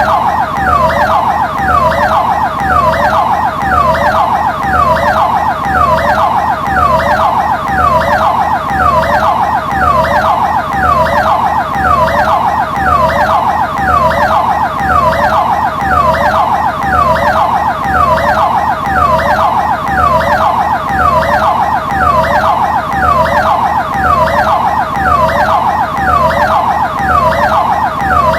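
Electronic ambulance siren sounding continuously in rapid, yelp-like sweeps, each falling in pitch, repeating steadily and swelling in loudness about every two seconds.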